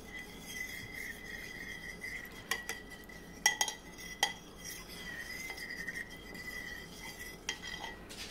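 Metal spoon stirring baking soda into hot water in a glazed ceramic bowl, scraping round the bowl and clinking against its side a few times, most sharply twice a little after the middle.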